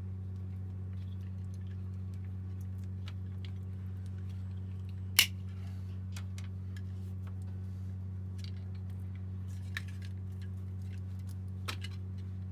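Small clicks of hand tools and wire being worked on a light fitting, with one sharp snip-like click about five seconds in, over a steady low hum.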